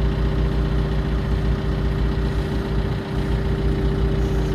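John Deere backhoe's diesel engine idling steadily.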